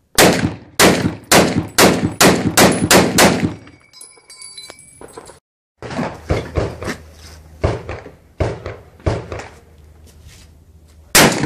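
Rifle fire at a shooting range: a rapid string of about eight loud shots in roughly three seconds, then a slower run of quieter shots and one more loud shot near the end.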